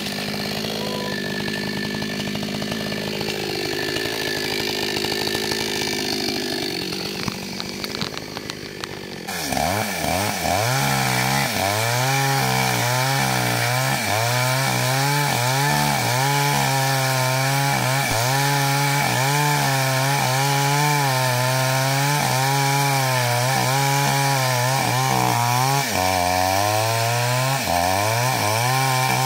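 Ogawa two-stroke chainsaw cutting into a tree trunk. For the first nine seconds the engine note is quieter and slides down and back up. It then switches abruptly to a loud, steady high-revving note whose pitch wavers as the chain bites, and the pitch drops lower near the end.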